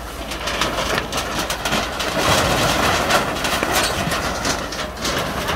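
Water from a fire hose hissing onto burning debris, with crackling and snapping throughout; the hiss is loudest in the middle. A steady low rumble runs underneath.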